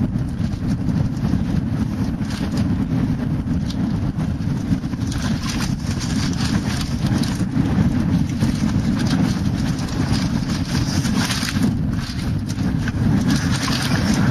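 Wind buffeting a helmet-mounted camera's microphone on a fast mountain-bike descent down a dirt trail: a loud, steady rumble, with clusters of rattles and knocks from the bike and tyres over rough ground, thickest about halfway and again near the end.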